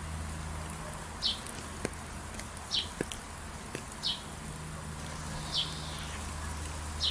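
A bird repeating one short, high, falling call five times, about every one and a half seconds, over an even soft hiss, a steady low hum and a few faint ticks.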